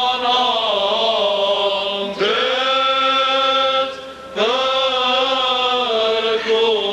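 Armenian church chant: voices singing long held notes that slowly rise and fall in pitch, with short breaks about two and four seconds in.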